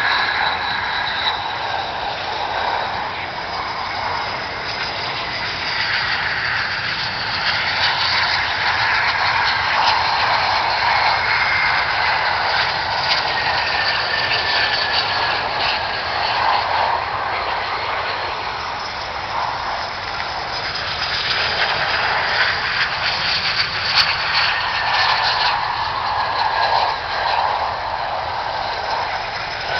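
Jet engines of BAE Hawk T1 jet trainers landing: a steady loud jet rush with whining tones that slowly fall in pitch, swelling twice as aircraft come past.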